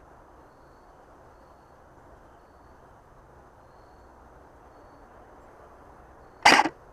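Faint outdoor background with quiet high chirps repeating. Near the end comes one loud, sharp report, lasting about a third of a second: a shot from an SVD-style airsoft sniper rifle.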